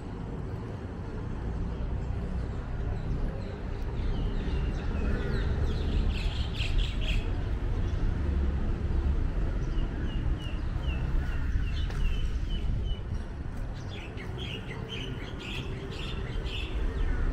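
Small birds chirping in several runs of short, quickly repeated high notes, over a steady low city rumble.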